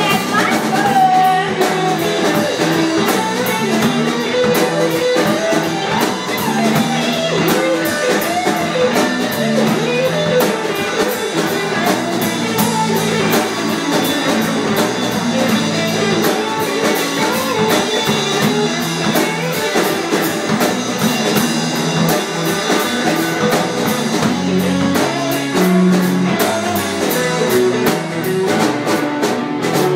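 Rock music led by guitar, with a drum kit keeping the beat.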